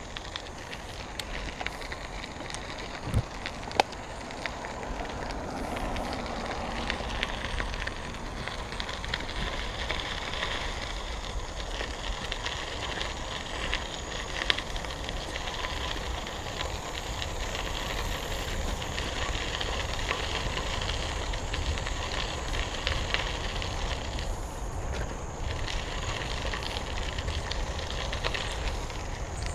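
Bicycle tyres rolling over a gravel trail, a steady crunching crackle with a low rumble underneath. Two sharp knocks come about three and four seconds in.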